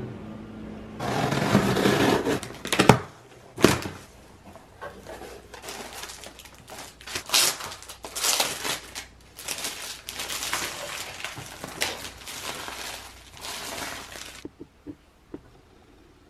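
Crinkling and rustling of wrapping being handled and torn, with two sharp knocks about three seconds in; it stops near the end.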